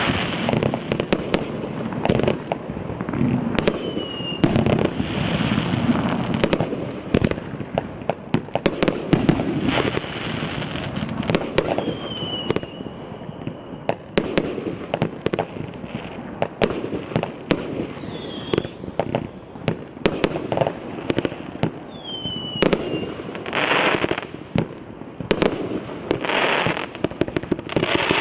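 A Russian Pyrotechnics РС9236 'ВечерИночка' 222-shot combination fireworks cake (0.8 to 1.5 inch tubes) firing a rapid, uneven run of shots, each a sharp launch pop followed by its burst. A few short whistles slide down in pitch along the way.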